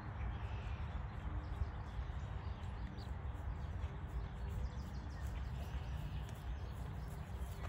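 Soft hoofbeats of a ridden horse moving on grass, with birds singing faintly over a steady low rumble.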